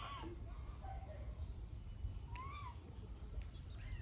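Short, high squeaky cries from a young animal, twice about two seconds apart, each rising and then falling in pitch.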